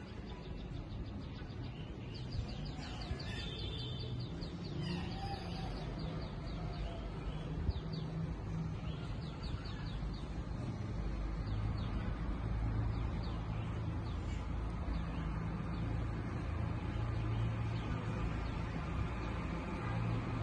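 Steady rain hiss, with a bird chirping in quick high series during the first several seconds and briefly again near the middle. A low traffic rumble builds from about halfway.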